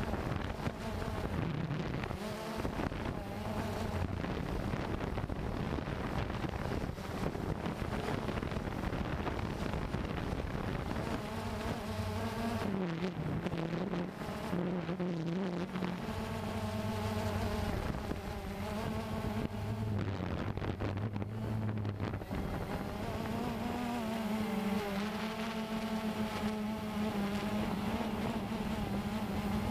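Cheerson CX-20 quadcopter's motors and propellers buzzing in flight, their pitch wavering up and down as the throttle changes, with wind noise underneath.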